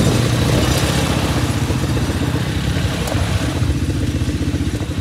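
ATV (quad bike) engine running with a steady, pulsing low chug.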